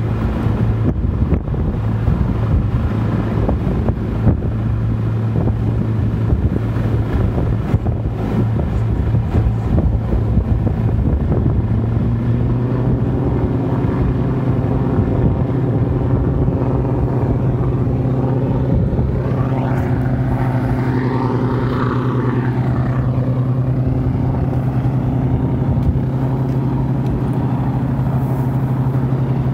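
Lockheed P-38 Lightning's twin Allison V-1710 V12 engines running steadily, their speed stepping up a little about twelve seconds in. A whine rises and falls about two-thirds of the way through, and wind buffets the microphone in the first moments.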